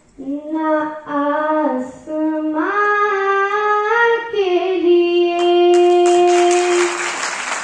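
A girl singing solo into a handheld microphone through a hall PA, a few rising sung phrases ending in one long held note. Audience applause breaks out near the end while the note is still held.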